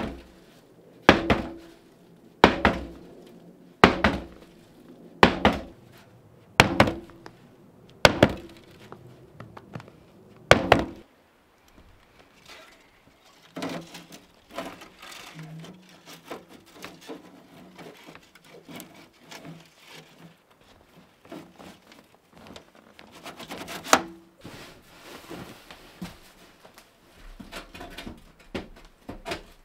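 Axe blows chopping wood: about eight sharp strikes roughly a second and a half apart, then lighter, irregular knocks of wood being handled, with one louder knock near the end.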